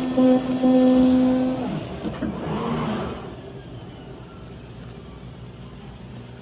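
CNC oscillating knife cutting machine running with a steady whine that breaks off briefly near the start, then stops a little under two seconds in with its pitch sliding down. A short rushing noise follows, then only a low steady hum.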